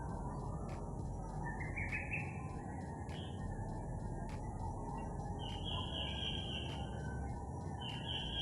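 Wild birds calling: a short rising trill about two seconds in, a brief note, then two longer held calls near the middle and at the end, over a steady low background rush.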